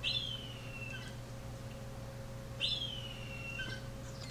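Baby birds in a nest in a microwave vent, calling twice: two high, thin calls about two and a half seconds apart, each falling in pitch for nearly a second.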